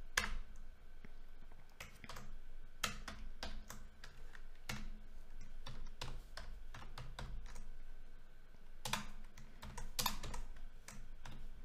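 Typing on a computer keyboard: irregular keystroke clicks in short runs with pauses between.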